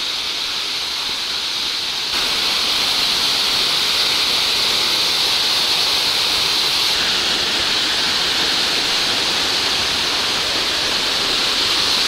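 A waterfall rushing: a steady, unbroken roar of falling water, which steps up a little louder about two seconds in.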